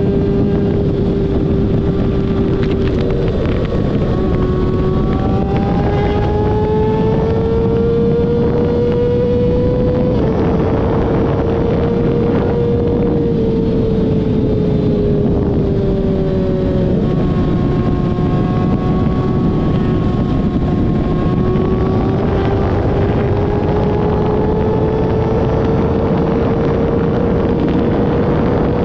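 Vehicle engine running at a steady speed, its note drifting slowly up and down, under heavy wind noise on the microphone.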